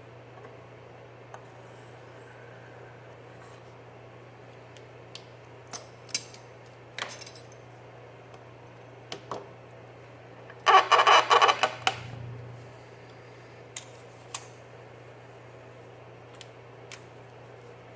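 Knife sharpening on a KME guided sharpener: scattered light metallic clicks and taps, then about ten and a half seconds in a short, loud run of quick scraping strokes of a diamond hone across the steel edge, lasting just over a second.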